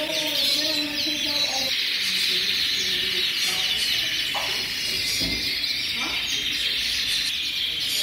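Many domestic canaries singing at once: a dense, continuous chorus of overlapping fast trills and chirps.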